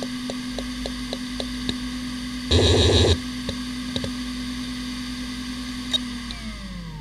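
Hitachi Ultrastar 15K300 15,000 rpm SAS hard drive spinning with a steady whine, ticking about three or four times a second as it initialises, with a loud half-second buzz about two and a half seconds in. Near the end comes a single click, then the whine starts falling in pitch as the drive spins down.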